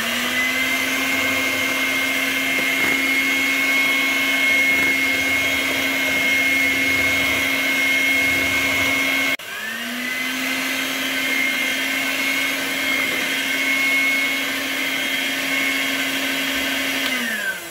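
Bifinett electric hand mixer running, its twin wire beaters whisking butter into egg-and-sugar cake batter in a glass bowl: a steady motor hum with a high whine. It spins up at the start, cuts off abruptly about nine seconds in, spins up again, and winds down near the end.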